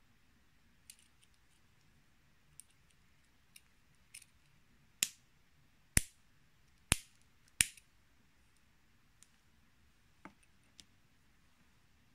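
Small metal SPST toggle switch being snapped by hand: four sharp clicks a little under a second apart, with fainter ticks from the switch and its plastic cover being handled before and after.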